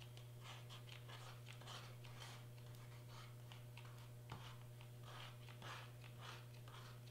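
Faint rustling and scraping of glitter cardstock being lifted and pressed down during hot-gluing, with one sharp click about four seconds in, over a steady low hum.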